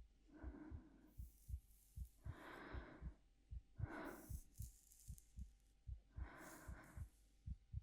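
Faint, soft breathing close to the microphone, four slow breaths, over a steady low heartbeat with its double thump repeating evenly.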